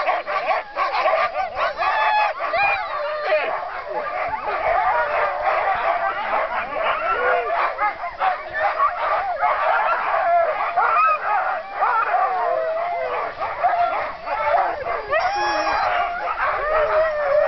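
A pack of harnessed sled dogs barking, yelping and howling all at once, a constant din of many overlapping calls. It is the excited clamour of the dogs eager to run before the start.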